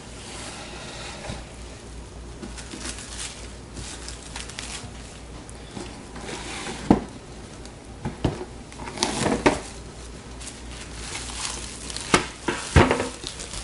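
Plastic cling film rustling and crinkling as it is handled and pressed down over meat in a tray, with a few short sharp knocks.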